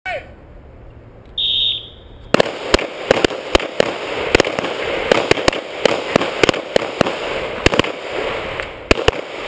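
A short, high electronic start beep about one and a half seconds in, the kind a shot timer or range buzzer gives. About a second later rapid pistol fire begins: an irregular string of sharp handgun shots, roughly two or three a second and some louder than others, from a Glock and the shooters at the neighbouring bowling-pin tables.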